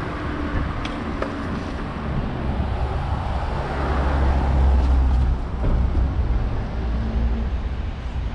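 Street traffic with a motor vehicle's engine running close by, its low hum loudest about four to five seconds in.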